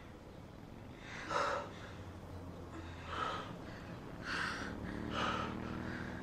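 A person's breathing: four short, audible breaths spaced one to two seconds apart.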